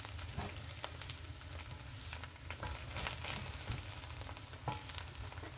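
A spatula stirring rice and fish in a non-stick pan, with scattered soft scrapes and taps, over a faint steady sizzle of the rice cooking on low heat.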